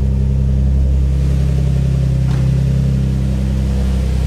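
Twin-turbocharged Infiniti G35's 3.5-litre V6 running steadily at idle. It is running properly on its Walbro 485 fuel pump through the newly wired relay, having started first try.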